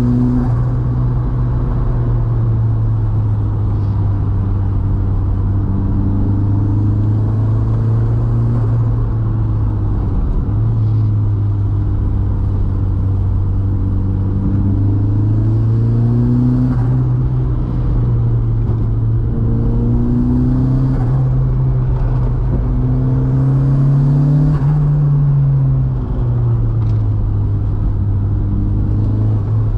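Mk2 VW's turbocharged 1.8T four-cylinder engine pulling up a mountain road, its note rising and falling with the throttle. There are brief drops, as in gear changes, about ten seconds in and again near the end.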